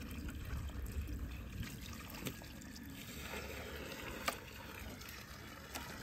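Water poured from a plastic bucket onto dry garden soil, a steady trickle and splash as the ground soaks it up. One brief knock about four seconds in.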